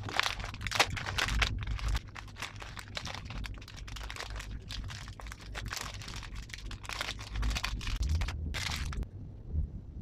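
Foil-lined plastic ice cream wrapper crinkling and crackling as it is torn open and peeled off the watermelon ice cream bar. The crinkling stops about a second before the end.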